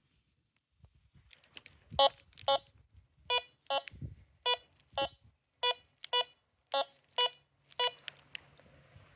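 Minelab X-Terra metal detector giving a target signal: about eleven short, identical mid-pitched beeps, mostly in pairs about two a second, from about two seconds in until near the end.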